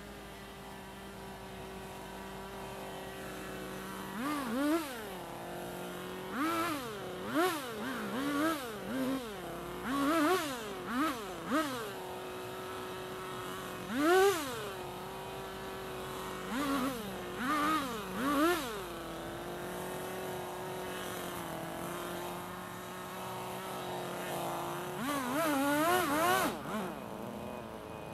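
Yanmar SV40 mini excavator's diesel engine working: a steady drone broken many times by short surges whose pitch climbs and falls back, as the machine's speed changes under work.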